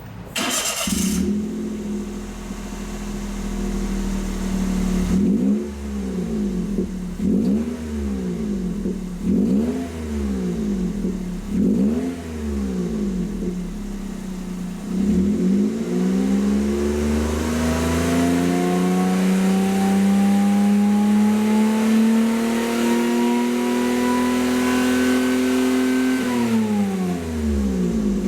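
Toyota Passo's exhaust through a one-off stainless muffler with a flat silencer and single tail pipe. The engine starts up about a second in and idles, then is blipped five times in short revs. It is then revved slowly up and held high for about ten seconds before dropping back to idle, with one more blip near the end.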